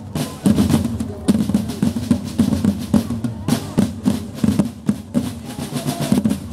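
A group of parade drums playing a fast, continuous rhythm of rolls and strokes.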